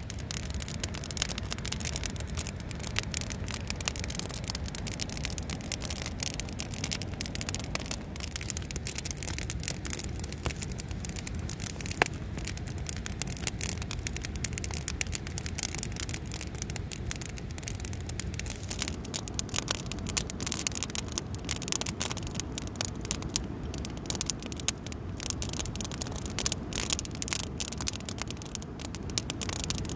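Wood campfire burning and crackling with many sharp pops, one louder pop about twelve seconds in, the crackling growing busier in the second half. Underneath runs a steady low rush of a waterfall.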